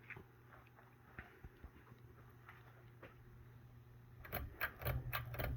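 Ceiling fan motor running on low speed with a slight, steady hum, otherwise quiet. About four seconds in, a quick run of sharp clicks and rattles takes over as the loudest sound.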